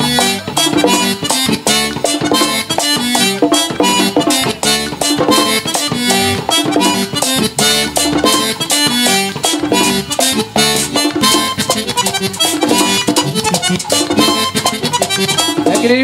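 Live Dominican merengue típico band playing an instrumental passage: button accordion leading over tambora drum, güira and electric bass, with a fast, steady beat.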